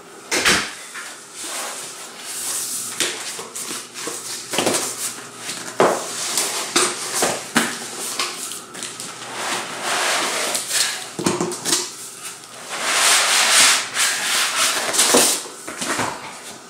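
Cardboard box flaps and soft foam packing blocks rubbing, scraping and knocking as the foam-packed mini CNC machine is pulled out of its box, with a longer stretch of scraping near the end.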